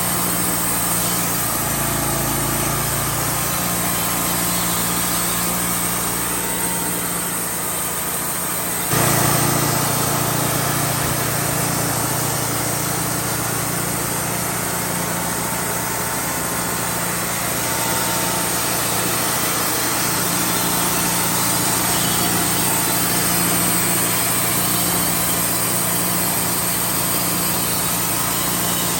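Wood-Mizer LT40 band sawmill running steadily under power, with a sudden change about nine seconds in where it grows a little louder.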